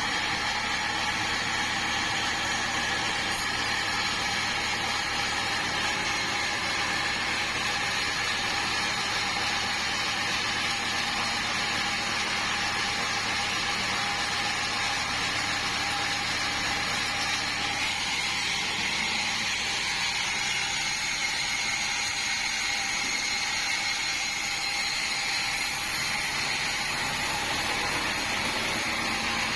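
Band sawmill running steadily as it saws a large meranti log: a constant mechanical whine over even noise, with no break.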